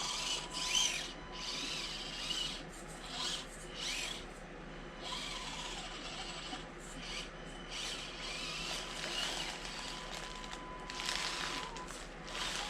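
Small electric motor and gears of an Axial SCX24 Deadbolt 1/24-scale RC crawler whining as it drives. The pitch rises and falls, and it stops and starts several times.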